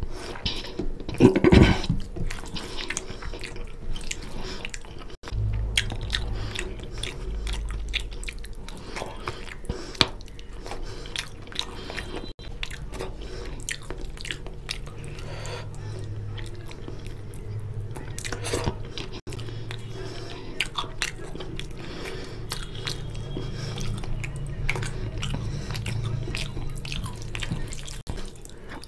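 Close-miked, wet chewing and mouth smacks of someone eating rice and fish curry, with fingers squishing rice and curry together on the plate. A steady low hum sits underneath from about five seconds in until near the end.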